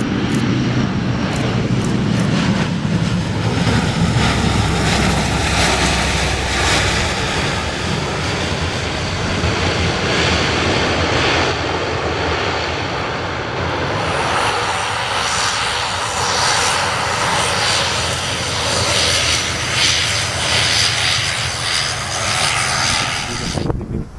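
Bombardier Dash 8 Q400's two turboprop engines running at high power on the runway: a loud, steady drone of engine and propeller noise with a faint whine, which cuts off abruptly near the end.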